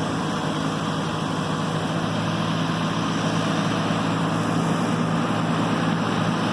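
A road roller's engine running steadily with a constant low hum while it compacts a parking lot.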